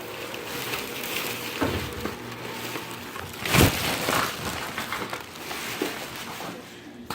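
Paper and plastic packaging rustling and crinkling as items are handled and pulled out of a sack, with one louder crunch about three and a half seconds in.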